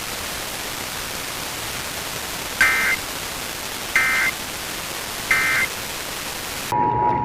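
Radio static hiss under three short warbling data bursts, about a third of a second each and roughly 1.3 s apart: the EAS end-of-message (NNNN) SAME tones that close an Emergency Alert System test. Near the end the recording cuts abruptly to the steady two-tone EAS attention signal of the next test.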